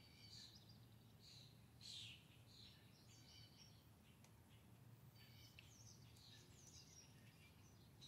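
Faint songbirds chirping and singing in short calls, some falling in pitch, the loudest about two seconds in, over a low steady hum.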